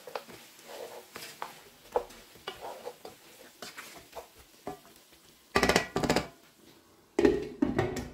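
Wooden spatula stirring and scraping pieces of lamb trotters and tomatoes in a non-stick frying pan, with a run of light knocks. Two louder, ringing clatters come about five and a half and seven seconds in; the last is the glass lid being set on the pan.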